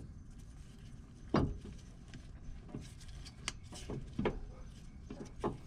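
A few sharp metal knocks and clicks, the loudest about a second and a half in, as a Wilwood brake caliper is worked onto its rotor. A low rumble runs underneath.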